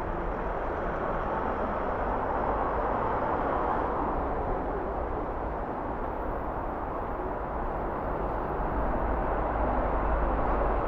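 Steady city street traffic: passing cars and engine noise, with a low rumble building up near the end.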